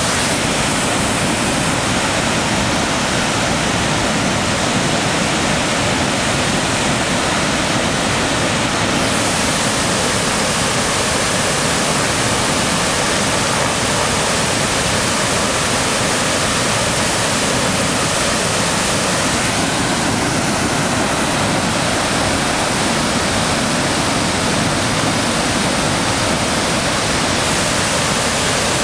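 Pigeon River's large waterfall, a heavy flow plunging into a mist-filled gorge, giving a loud, steady rushing roar of falling water.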